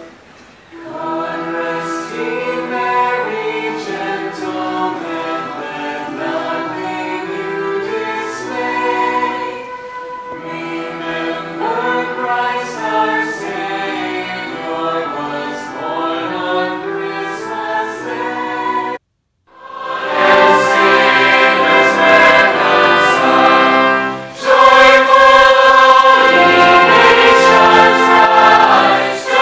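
Live choir and orchestra performing, with singers on microphones over the ensemble. The music cuts out suddenly for a moment about two-thirds of the way through, returns louder, and swells again near the end.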